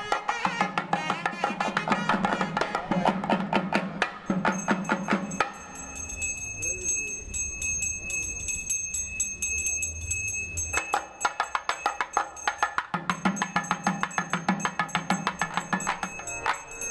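South Indian temple music: a nadaswaram melody over fast thavil drum strokes. About five seconds in, the drumming and melody drop away for around five seconds, leaving a steady high ringing tone, then the fast drumming comes back.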